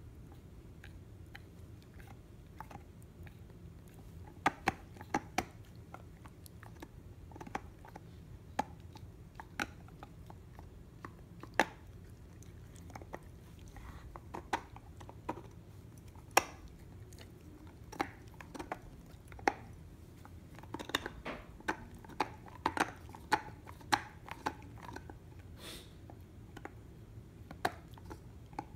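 A dog gnawing a water buffalo horn chew: irregular sharp clicks and cracks of teeth on hard horn, coming more often about three quarters of the way through.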